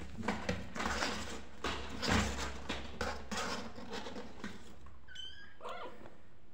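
Kittens scuffling on cloth bedding, a rustling scuffle for the first four seconds or so. Near the end, a kitten gives two short, high mews.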